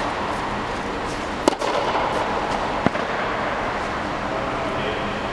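Steady rushing hum of the air dome's blowers, with two sharp knocks of a tennis ball about a second and a half in and again near three seconds.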